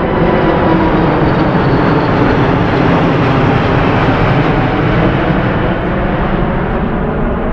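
Jet noise from the four Rolls-Royce Trent 900 turbofans of an Airbus A380-841 passing low overhead and moving away: a loud, steady rush with a thin high whine that fades within the first couple of seconds, the sound easing slightly near the end.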